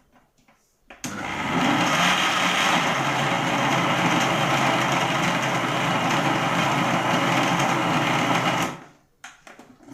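Electric blender (mixer-grinder) running steadily, blending chocolate syrup into cake batter; it starts about a second in and cuts off sharply after about seven and a half seconds.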